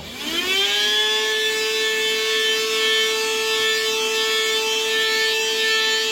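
A vacuum cleaner switching on to clear dust from inside the opened computer. Its motor whine rises in pitch over about the first second, then runs on at one steady high pitch.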